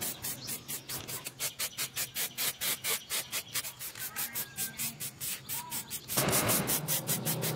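Aerosol spray-paint can hissing in a long burst that starts about six seconds in and is the loudest sound. A fast, even ticking, about five or six ticks a second, runs throughout.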